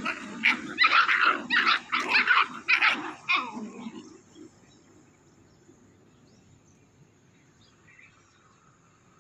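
Puppies yapping and barking in rapid short bursts while play-fighting, stopping about four seconds in.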